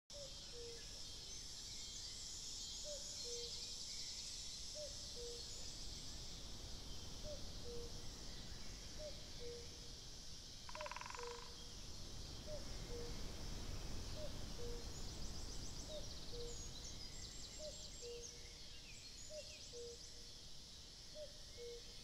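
A cuckoo calling its two-note falling "cuck-oo" over and over, about every second and a half, over a steady high insect buzz and songbird trills. A short rattle comes about halfway through.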